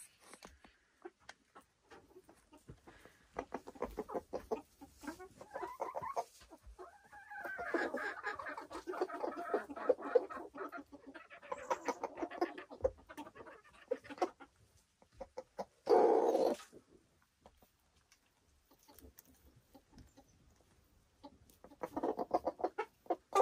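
Silkie chicken clucking in runs of soft pitched calls, with one louder, short call about sixteen seconds in.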